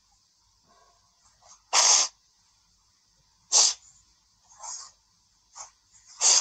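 A woman crying: short, sharp sniffs and sobbing breaths, about five of them, the loudest about two seconds in and another at three and a half seconds.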